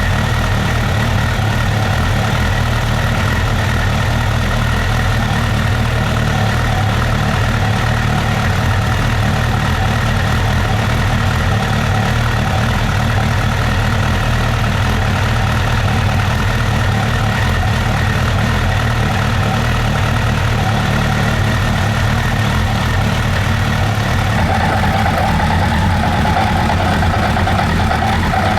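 Suzuki GSF1200's oil-cooled inline-four engine idling steadily. A mid-pitched note grows stronger near the end.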